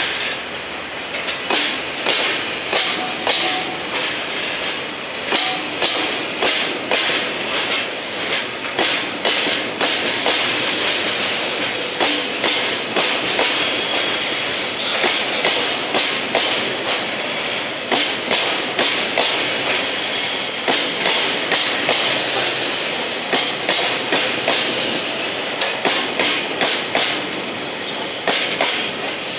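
Freight train of Taki 1000 tank wagons rolling past while departing, its wheels clacking over the rail joints in a steady run of sharp clicks. Brief high wheel squeals can be heard here and there.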